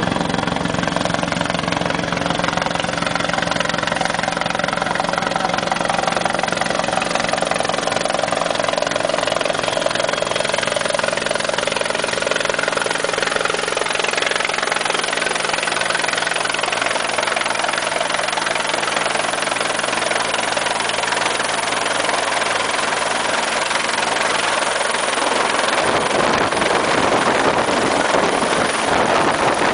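Helicopter running steadily, with a constant engine and rotor sound and a pulsing rotor beat in the low end. About 26 seconds in, the low engine tones fade and a rushing, wind-like noise takes over.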